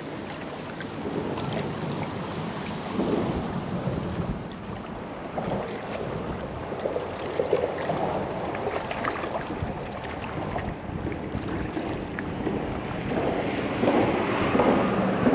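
Wind rumbling on the microphone over the wash of river water, growing louder in the last couple of seconds.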